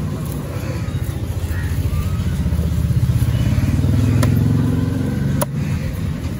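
An engine running with a pulsing low rumble that swells to its loudest about four seconds in and drops off sharply a little after five seconds, with two sharp knocks of a cleaver striking a wooden chopping block.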